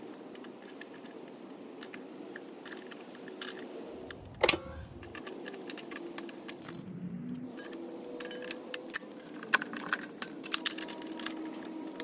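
Needle-nose pliers clicking and clinking against the steel rear brake pedal linkage and spring of a small motorcycle, with one sharp metallic clank about four and a half seconds in.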